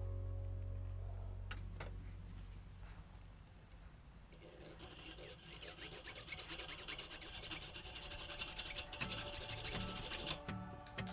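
Fast, scratchy rubbing strokes of hand work on a small hard piece, starting about four seconds in and going on for about six seconds. A music bed fades out in the first second.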